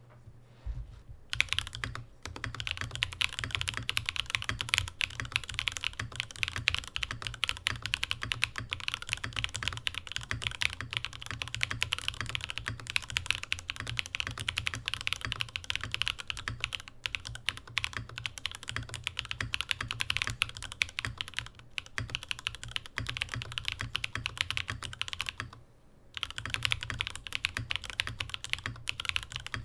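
Fast continuous typing on a Mode Sonnet mechanical keyboard with Sillyworks x Gateron Type L linear switches, on an aluminium plate with no foam: a dense stream of key bottom-out clacks. The typing starts about a second in and pauses briefly once near the end.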